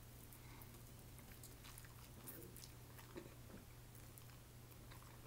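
Faint chewing and biting as a person pulls chicken off a wooden skewer with her teeth: scattered small mouth clicks over a low steady hum.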